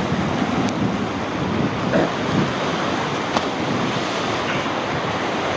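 Whitewater rushing steadily through a concrete rapids channel, with wind buffeting the microphone.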